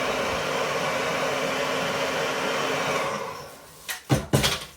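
Small handheld hot air dryer blowing steadily, then switched off and running down about three seconds in. A few short knocks follow near the end.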